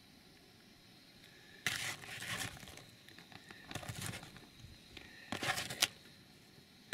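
Chopped green onions being shaken out and scattered onto a slice of bread, in three short bursts of light noise about a second and a half apart.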